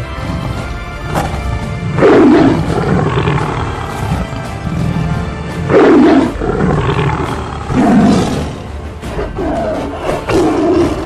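Dubbed big-cat roar sound effects, about four loud roars a few seconds apart, over steady background music.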